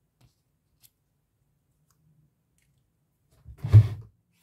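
Two faint clicks, then about three and a half seconds in a short, loud knock with a rustle as plastic game pieces are handled and set down on the game board.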